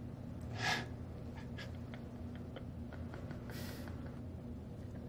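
A man's short snort of a laugh through the nose about half a second in, then a softer breath a few seconds later, over a low steady hum.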